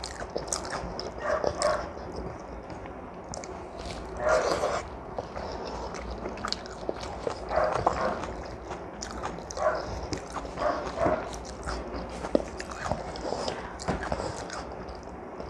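Eating sounds close to the microphone: chewing and smacking with the mouth open, with irregular clicks and squishes from fingers mixing rice and dal on a plate.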